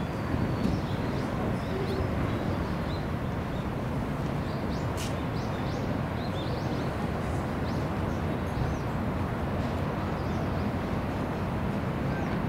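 Outdoor ambience: a steady low rumble with scattered faint, short, high bird chirps throughout.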